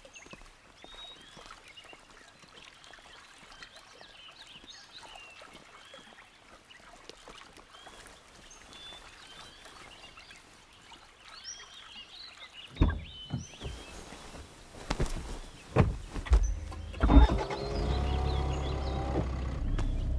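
Birds chirping over quiet outdoor ambience. About two-thirds of the way through come several car-door clunks and thumps. Near the end a car engine starts and settles into a steady low idle.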